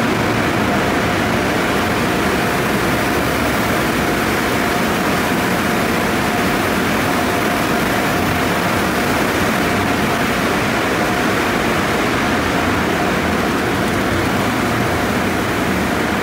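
Conveyor car wash tunnel in operation: a steady rush of water spraying from the arches and cloth brushes spinning against a car, with a faint steady machine whine underneath.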